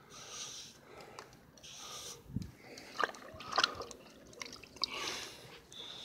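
Damp sponge wiping fresh caulk along roof seams: quiet wet rubbing in several short strokes, with a few small clicks.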